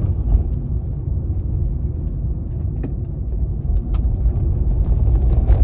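Steady low road and engine rumble heard from inside a car's cabin while driving at motorway speed, with a few faint clicks.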